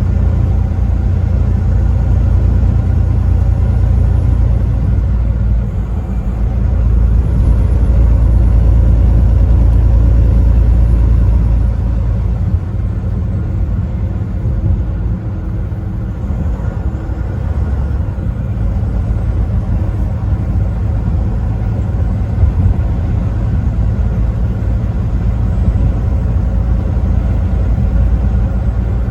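Truck driving on the interstate: a steady low engine and road rumble, a little louder for the first dozen seconds and then easing slightly.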